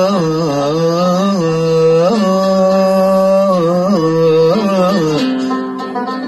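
A man singing a long, wavering melismatic line in Arabic over a plucked string instrument; about five seconds in the voice stops and the instrument plays on alone.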